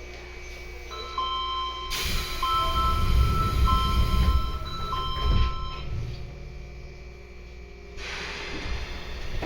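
A subway train door chime (Sendai Subway Namboku Line 1000N series) sounds a two-note rising 'pin-pon' about four times in a row, over a low rumble. It signals that the doors are operating.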